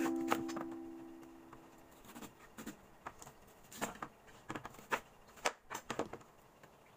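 Knife cutting peeled arrowroot on a plastic cutting board: a string of short, irregular knocks as the blade goes through and meets the board. Ukulele music fades out during the first two seconds.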